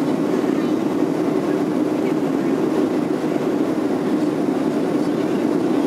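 Steady cabin noise of a Boeing 737-700, the drone of its engines and airflow heard from inside the passenger cabin, holding an even level throughout.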